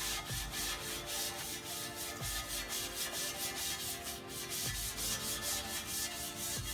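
A Scotch-Brite abrasive pad scuffing the primed aluminum heatsink of a car amplifier in rapid, even back-and-forth strokes, keying the primer before the top coat of paint.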